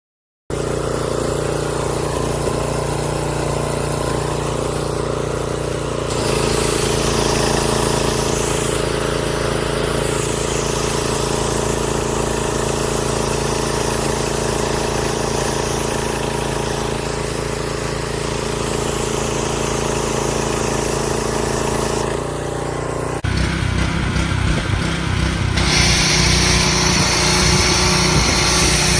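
Stanley 2150 pressure washer running with the spray gun open: a steady pump-and-motor hum under a hiss of spraying water. It starts abruptly and changes in tone a few times, getting louder and brighter in the last few seconds.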